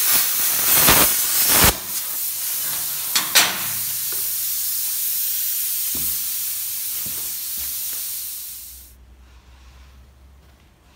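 Hand-held plasma cutter cutting steel plate: a crackling hiss for the first couple of seconds as the arc cuts, then the torch's air hissing steadily on its own, which cuts off suddenly about nine seconds in. Two sharp knocks come a little after three seconds.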